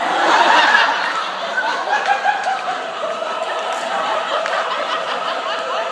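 Audience laughing, breaking out loudly at once and then carrying on as a long spell of mixed chuckles.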